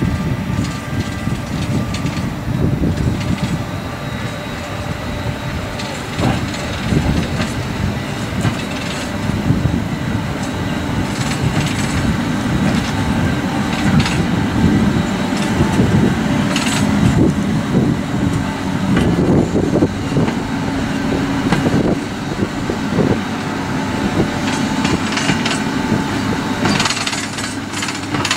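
CFR Class 40 electric locomotive running light at walking pace, with a steady low rumble and scattered knocks and clanks as its wheels cross rail joints and points.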